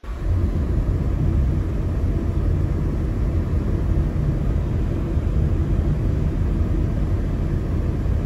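Car on the move: a steady low rumble of road and wind noise, starting abruptly.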